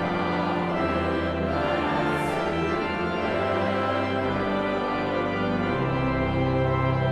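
Large pipe organ playing sustained chords, with deep bass notes coming in about four seconds in.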